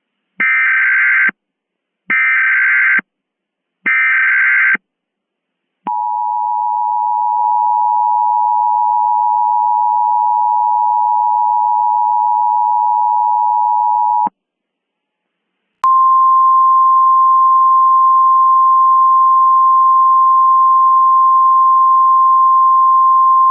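Emergency Alert System tones. Three short screeching bursts of SAME header data come first, then the two-tone EAS attention signal for about eight seconds. After a short pause a single steady alert tone begins and holds.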